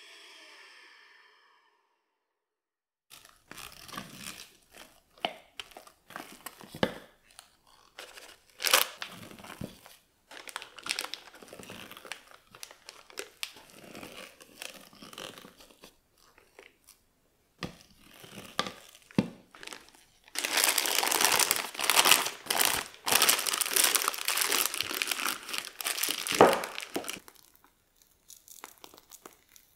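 An electric hand mixer runs briefly and stops. Then a spatula scrapes and folds thick whipped cream in a plastic mixing bowl, in irregular clicks and scrapes. Past the middle comes a longer, louder stretch of plastic piping-bag crinkling as the bag is filled and handled.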